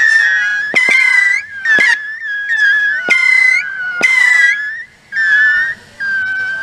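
A 50-shot Saturn missile battery firing its last missiles: overlapping shrill whistles, with a sharp pop about once a second. Near the end the volley thins out to two last whistles.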